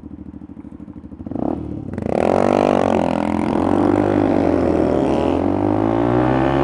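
Motorcycle engine idling with an even throb, then about two seconds in it pulls away, the engine note climbing steadily as it accelerates, with a rush of wind noise.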